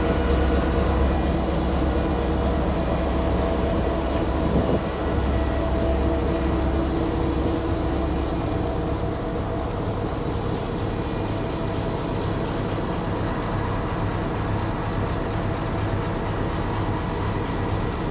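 Diesel locomotive engine idling: a steady low hum with a few steady tones over it. The deepest rumble eases off about eight seconds in.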